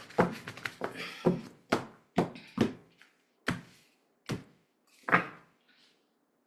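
Tarot cards being shuffled by hand: a series of short card slaps, one every half-second to second, stopping about five seconds in.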